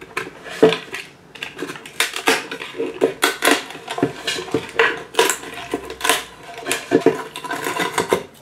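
Utility-knife blade scraping and cutting into the base rim of a bamboo plate: a run of irregular scrapes, clicks and small cracks as the rim is worked loose and prised away.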